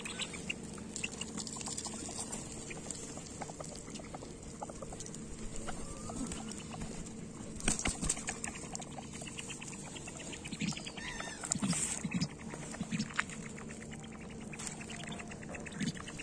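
Feral pigeons and mandarin ducks crowding in to feed: a patter of quick pecks and scuffles on gravel and a hand, with a few short, low calls about two-thirds of the way through.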